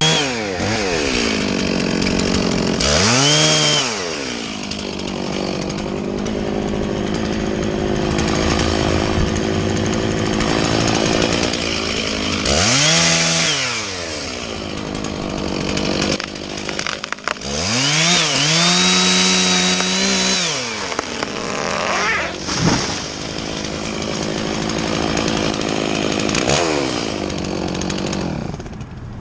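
Two-stroke chainsaw running loudly. It is revved up to full speed and back down three times, and runs at a lower speed in between.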